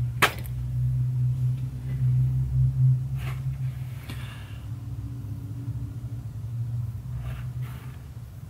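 A freshly sharpened Spyderco Manix 2 knife with an S110V blade slicing through a hanging paper towel in a few brief, quiet cuts, a test of the edge's sharpness. A sharp click comes just after the start, over a steady low hum.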